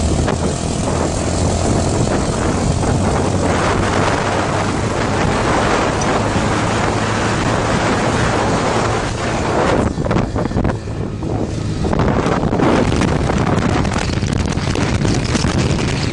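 A vehicle engine running steadily under heavy wind buffeting on the microphone, as when recording from a moving vehicle; the engine hum fades somewhat and the wind noise dips briefly about ten seconds in.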